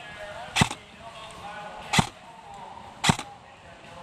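Airsoft electric rifle, a Krytac Trident MK-II CRB, firing three single shots spaced a little over a second apart, each a short sharp crack.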